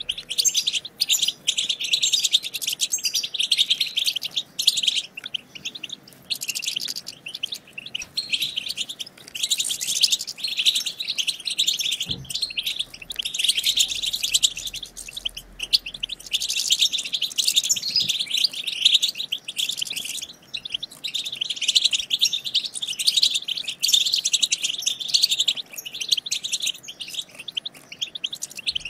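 European goldfinches chattering: a fast, nearly unbroken twitter of high calls from several birds at once, growing and easing in loudness every few seconds. This is the goldfinch 'batbata' chatter that keepers play to set caged goldfinches singing.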